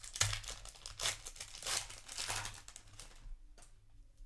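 Foil trading-card booster pack wrapper crinkling and tearing as it is handled, in several bursts that die away after about three seconds, with a light click near the end.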